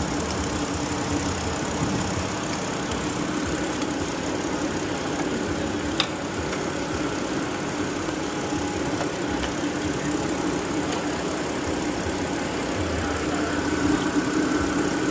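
BMW 528i's N52 inline-six engine idling steadily with the new alternator fitted, with one sharp click about six seconds in.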